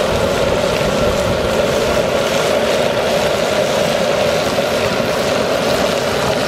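Outdoor propane jet burner running on a high flame: a steady, loud rushing noise with no breaks.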